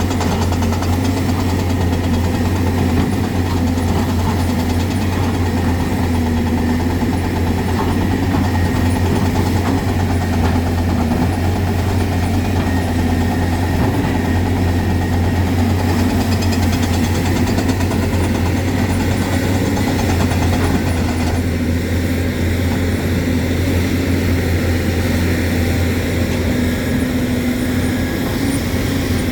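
Hyundai excavator's diesel engine running steadily with a low, even hum.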